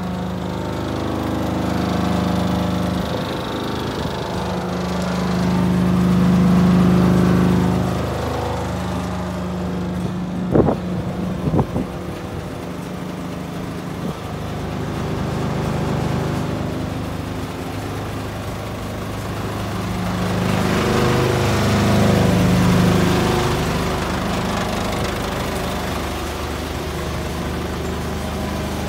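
Isuzu Giga truck's diesel engine idling steadily, swelling louder twice. A few sharp knocks about ten to twelve seconds in.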